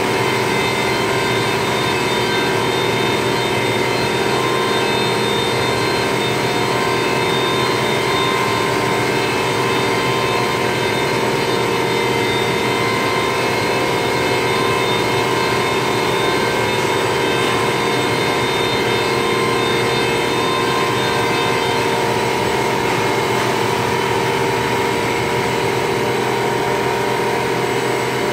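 Océ Arizona flatbed printer running as its print carriage travels over the bed: a steady mechanical whirr with several steady whining tones.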